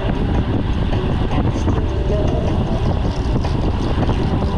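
Steady rush of wind on a bike-mounted action camera's microphone while riding at speed, with road and traffic noise underneath.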